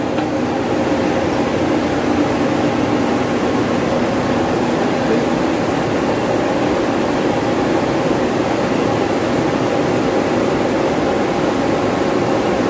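Steady drone of running plant machinery, an even fan-like rush with a few constant hum tones through it.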